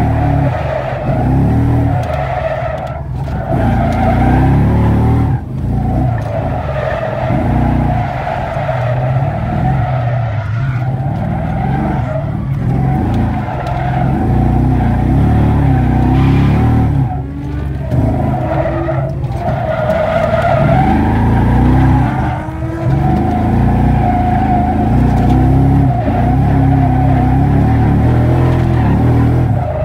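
Drift car driven hard: engine running at high revs with tyres skidding and squealing through sustained drifts, the sound dipping briefly a few times.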